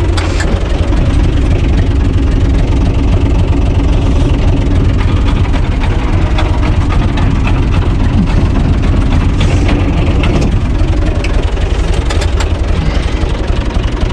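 UTB Universal 445 DT tractor's four-cylinder diesel engine running steadily with a heavy low rumble, heard from the driver's seat, with a few short clicks over it.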